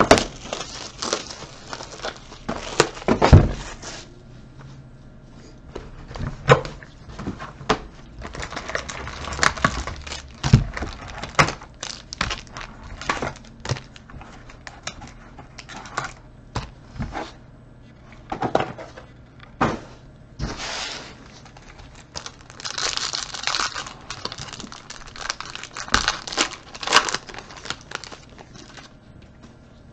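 A cardboard trading-card box being opened and its foil card packs crinkled and torn open by hand, with scattered clicks and taps of packs and cards handled on a table. Longer crinkling stretches come about a third of the way in and again past the middle.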